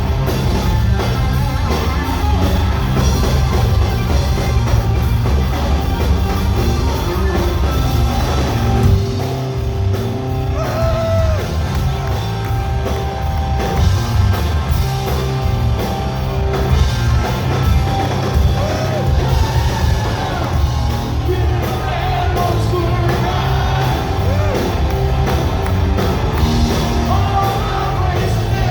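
A rock band playing live, with singing and a few shouted vocals over the band.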